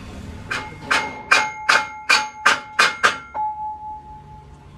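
Hammer striking a steel workpiece: about eight quick, ringing metal blows, roughly two to three a second, the last one leaving a clear metallic ring that dies away over about a second.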